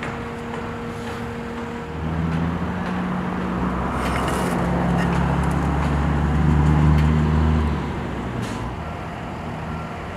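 A motor vehicle's engine passing by, a low hum that swells over a few seconds and then fades.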